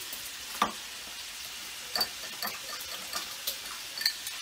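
A spoon stirring a thin mix of oil, water and cornstarch in a small bowl, clinking against its side several times, loudest about two-thirds of a second in, over a steady hiss.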